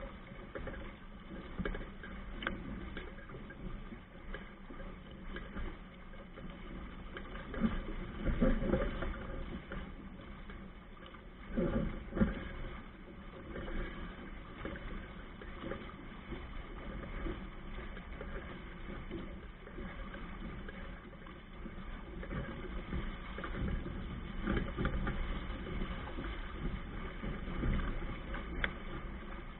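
Water rushing along a sailing Hobie Cat 16 catamaran's hull and wind buffeting the camera's microphone, a steady noise with louder surges about eight and twelve seconds in.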